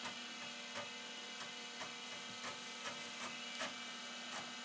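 Amiga 2000 disk drives at work: a steady hum with regular ticks, about two and a half a second, as the drives seek while reading. The hum comes partly from an old MFM hard disk that is very loud and failing with read-write errors.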